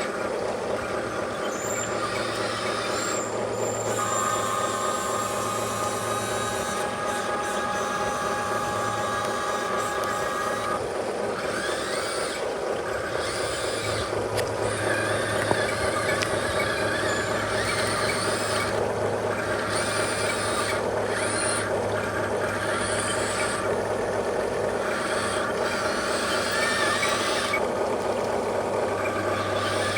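Remote-control model truck running, with truck-like sounds: a steady engine note and hiss that comes and goes, like air brakes.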